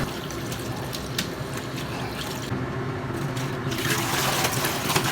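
Water running and splashing steadily as blanched cat's ear leaves are rinsed, with a few faint clicks.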